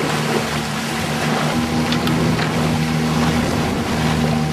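Wind and water rushing past a small sailing trimaran under way, a steady noise with the hiss of the bow wave through choppy water, over a low steady hum.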